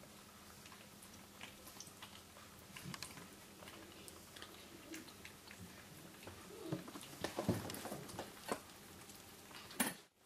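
Sphynx kittens chewing and eating from stainless steel bowls: scattered small clicks and smacks, busier about seven to eight and a half seconds in, with a sharp click just before the sound cuts out near the end.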